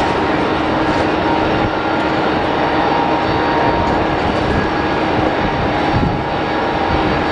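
Tupolev Tu-154M's three Soloviev D-30KU-154 turbofans running at taxi power: a loud, steady jet rumble with a faint whine on top.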